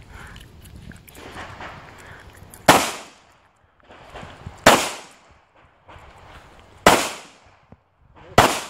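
Four handgun shots, spaced about two seconds apart, each a sharp crack with a short echo trailing off.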